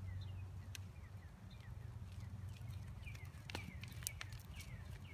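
Small birds chirping in short, repeated falling notes over a low steady rumble, with the soft hoofbeats of a horse trotting on sand and a few sharp clicks.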